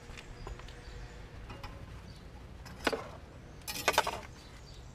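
A sharp click, then a short burst of metallic clinking and rattling about four seconds in, as new brake pads and their clips are handled at the brake caliper.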